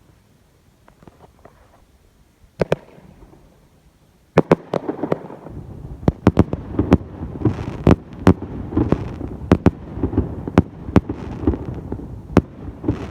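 Consumer fireworks going off: a few faint pops, one sharp bang about two and a half seconds in, then from about four seconds in a rapid, irregular string of loud bangs and crackles.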